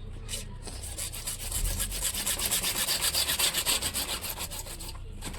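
Rapid back-and-forth rasping strokes of a hand tool working material, about six or seven strokes a second. It starts about half a second in, grows louder in the middle and stops shortly before the end.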